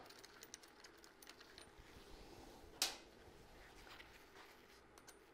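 Near silence with faint small clicks of hand work as the top clamp bolt of a radial brake master cylinder is fitted on a motorcycle handlebar, and one sharper click about three seconds in.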